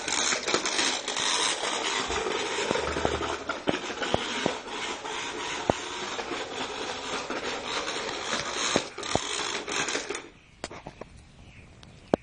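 Rough scraping and rustling noise with many scattered sharp clicks, dropping away suddenly about ten seconds in.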